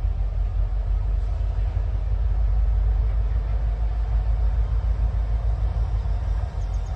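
Three Canadian Pacific diesel-electric locomotives running at slow speed with a light train: a steady low rumble.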